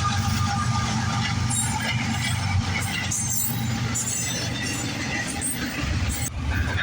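Train passing close by: a steady low rumble of wheels on rail, with scattered high-pitched metallic screeches and rattles.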